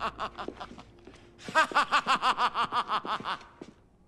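A man's exaggerated, theatrical laugh in two bursts of quick, evenly repeated 'ha-ha-ha' pulses, the second starting about a second and a half in and dying away shortly before the end.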